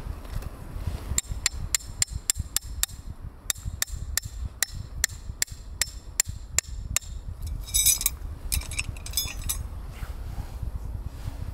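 Hammer driving tent stakes into the ground: about twenty quick, sharp strikes at roughly three a second, with a short break partway. Near the end comes a brief metallic jingle.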